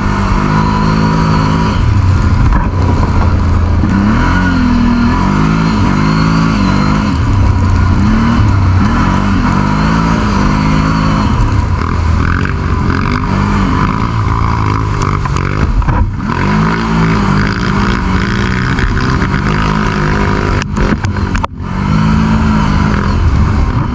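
Quad bike (ATV) engine under way on a rough trail, heard from the handlebars, its pitch rising and falling again and again as the throttle is opened and eased, over a constant rumble of wind and ride noise. A thin steady whine runs under it.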